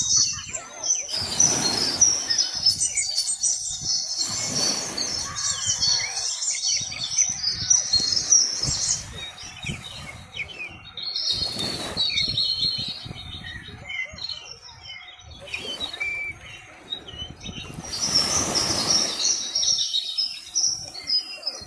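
Many small birds chirping busily and without pause, with a few short gusts of rushing noise a few seconds apart.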